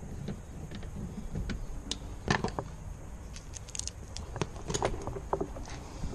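Scattered small clicks and knocks of hands working plastic wiring connectors and parts inside a car door, with one sharper click a little over two seconds in and a run of clicks about two-thirds through.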